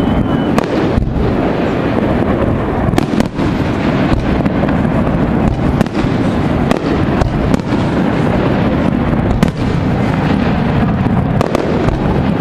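Fireworks display: aerial shells bursting in quick succession, a dense continuous barrage of booms with sharp bangs and crackles every second or so.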